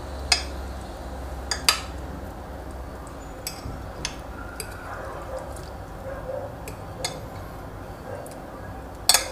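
Metal fork and spoon clinking against a porcelain plate while pulling apart braised lamb shank meat: about half a dozen sharp separate clinks, the loudest about a second and a half in and near the end.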